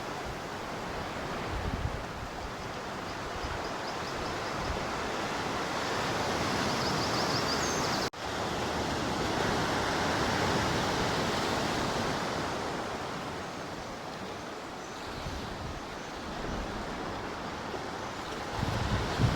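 Sea surf and wind, a steady rushing noise, with a brief dropout about eight seconds in.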